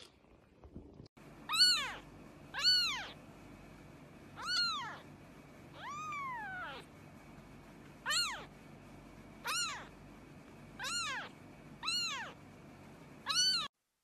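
A kitten mewing: nine short, high-pitched mews, each rising and then falling in pitch, roughly one a second, with one longer, softer mew near the middle.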